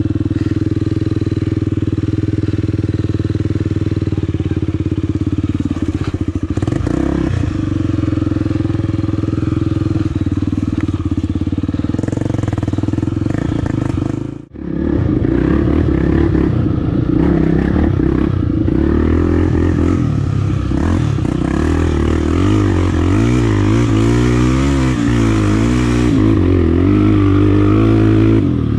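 Honda Tornado trail bike's single-cylinder engine running at a steady speed. After a brief drop-out about halfway, the engine speed rises and falls over and over as the throttle is worked.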